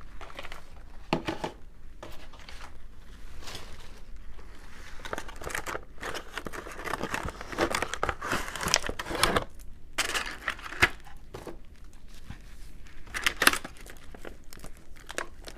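A small product box being opened and its packaging handled: irregular crinkling, rustling and tearing of wrapping as a mini kitchen scale is unpacked.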